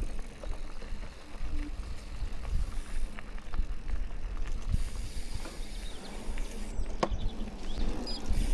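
Mountain bike riding along a dirt trail: steady tyre and wind noise with low rumble, and a few sharp knocks and rattles from the bike over bumps, the loudest about seven seconds in.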